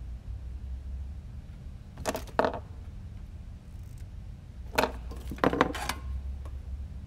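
Metal tweezers and small hand tools clinking and clattering as they are picked up and put down on the workbench, in two bursts about two seconds and five seconds in, over a low steady hum.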